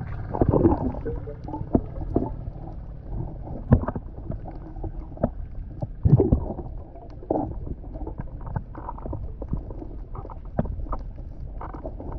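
Muffled underwater handling noise as gloved hands gather sea urchins into a mesh net bag on a seagrass bed: irregular knocks and scrapes against a steady low rumble of water. Two louder swishing bursts stand out, about half a second in and about six seconds in.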